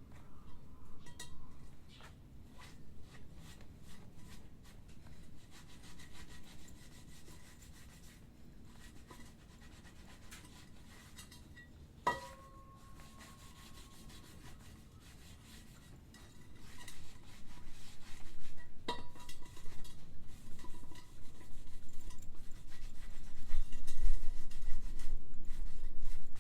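Rubbing and scraping from hand work on a scooter's wheel and tyre, louder in the last third. A sharp metallic clink rings out about halfway through and another about three-quarters through.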